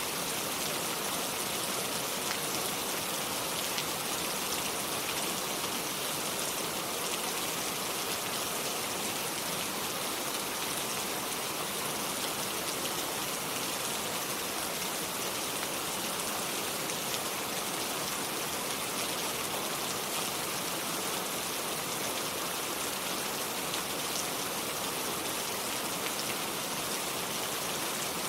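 Steady rain without thunder, an even hiss of falling rain with faint scattered drop ticks.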